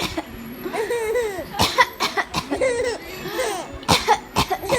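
A woman's fake coughs, several short sharp bursts, with a young child giggling in high-pitched peals between them.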